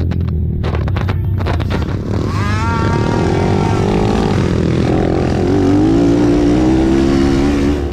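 Racing ATV engines revving hard, climbing in pitch about two seconds in, then holding a high, slowly rising drone as they pull under throttle.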